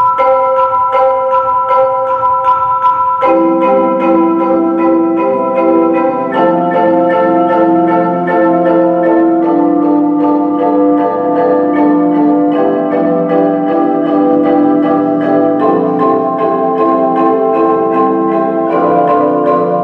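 Mallet percussion ensemble of marimbas, xylophone, vibraphone and bells playing a four-mallet exercise, with steady repeated strokes on chords that shift every few seconds. Lower notes join about three seconds in, filling out the chords.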